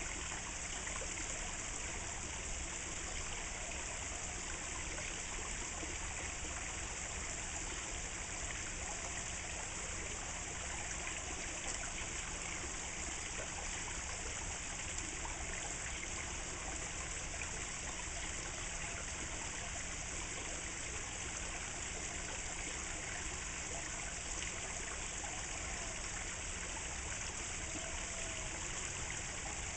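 Thin stream of water from a garden pond's statue fountain falling into the pond, an even, unbroken splashing trickle with no separate splashes.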